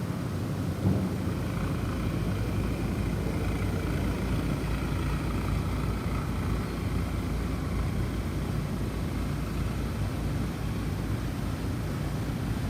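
Snowstorm wind blowing steadily, a low rumble with a faint wavering whistle above it for part of the time.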